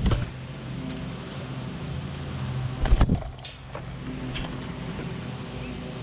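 Steady low mechanical hum, with a sharp knock at the start and a louder cluster of knocks about three seconds in.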